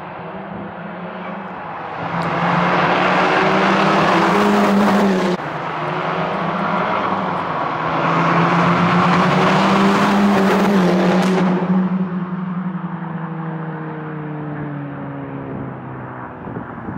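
Mk5 Golf GTI Edition 30's turbocharged four-cylinder engine through a Trackslag aftermarket exhaust, driving by under load: a steady engine drone swells loud, then falls away. The sound breaks off abruptly twice, about five and eleven seconds in.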